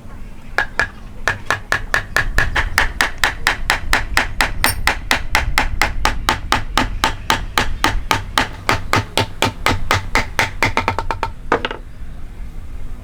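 Hammer striking rapidly and evenly in hand-cut woodworking, about five blows a second with a ringing tone to each, stopping a little before the end.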